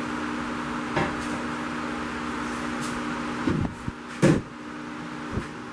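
Several knocks and clunks as the steel main hoop of a roll cage is manoeuvred inside the car's cabin. The loudest comes about four seconds in. A steady hum stops about three and a half seconds in.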